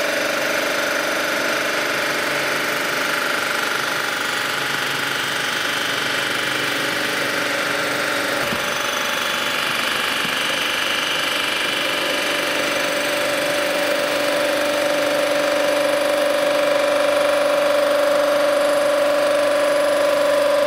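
Cylinder head resurfacing machine running steadily while taking a very light cut across an aluminum Ford flathead V8 head, a steady mechanical whine with a faint click about eight and a half seconds in.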